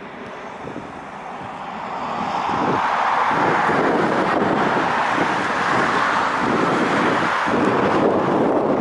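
Ilyushin IL-76's four turbofan engines roaring during its departure, growing louder over about three seconds and then holding steady, with strong wind buffeting the microphone.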